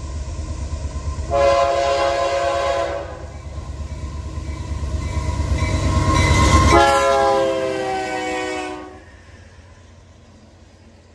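Diesel freight locomotive sounding its horn in two long blasts while approaching and passing, over a low engine rumble that builds up to the moment the locomotive goes by about seven seconds in. After the second blast the sound drops to the quieter rolling of the loaded flatcars.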